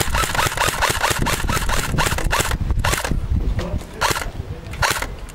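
AK-pattern airsoft rifle firing a quick string of shots, about six a second, each with a short motor whine. About three seconds in it slows to a few single shots, each under a second apart.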